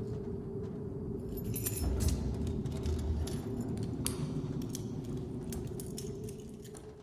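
Scattered metallic clinks and jingles over a steady low hum, fading out at the end.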